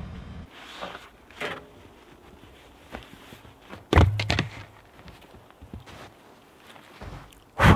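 Footsteps crunching in snow, with a heavy thunk about four seconds in and a sharp, loud knock near the end. A low hum cuts off just after the start.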